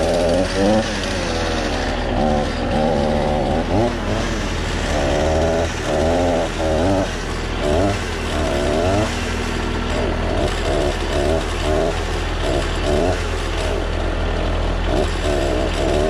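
Mahindra 4010 HST compact tractor's diesel engine running under load while its front loader works, the engine note rising and falling repeatedly as the bucket lifts and dumps a load of slabs.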